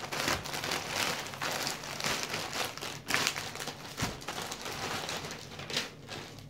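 Plastic poly mailer bag and the shirt's clear plastic wrapping crinkling and rustling irregularly as they are handled and pulled apart.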